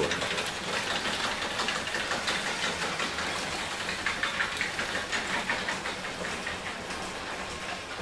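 Automatic garage door opener running, rolling the garage door down. It is a steady mechanical run with a faint hum that slowly gets quieter.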